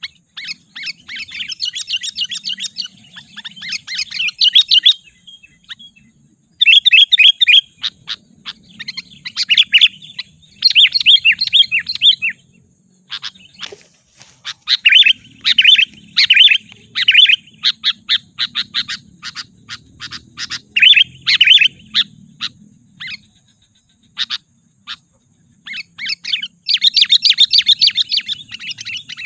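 Sooty-headed bulbul (kutilang) calling in repeated bursts of rapid, chattering notes, each a second or two long with short pauses between. This is the excited call used as a lure (pikat) to provoke wild bulbuls.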